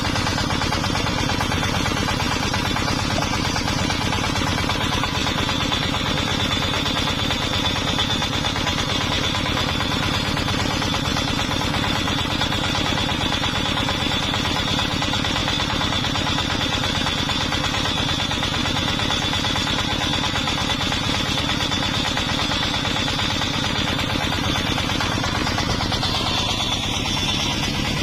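An engine-driven sawmill running steadily, its engine pulsing rapidly under a thin, high, steady whine. The whine fades away near the end.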